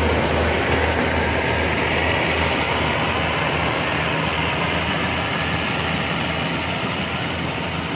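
Yanmar rice combine harvester running while it harvests and crawls on its tracks through a muddy paddy: a steady mechanical din over a low engine hum, growing slightly fainter as it moves away.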